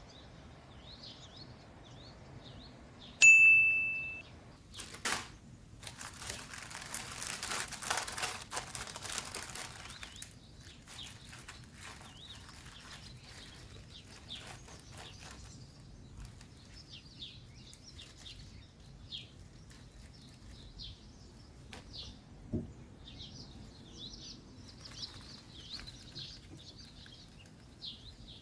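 Small birds chirping on and off in the background. About three seconds in comes a single bright ringing ding, fading over about a second, followed by a click and several seconds of noisy rustling, and one knock later on.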